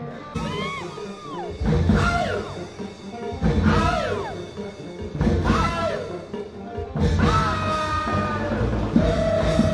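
Music: a song with a singing voice that glides between notes, over a band with drum kit and bass that comes in strongly in stretches and plays steadily from about seven seconds in.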